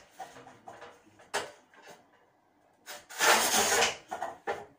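Rough noisy scrapes in a small room: a brief one, then a louder scrape about a second long about three seconds in, followed by two short ones.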